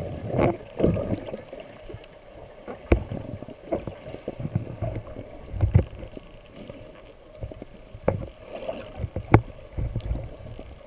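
Underwater recording of water sloshing and bubbling irregularly as the camera moves through the water, with faint high-pitched whistles from spinner dolphins. The whistles rise and fall and come several times.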